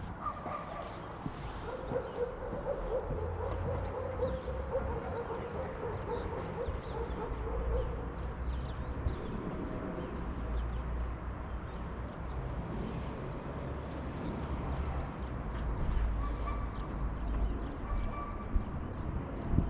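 Many small birds chirping and twittering in quick, high-pitched calls throughout, over a low background rumble, with a steady hum through much of the first half.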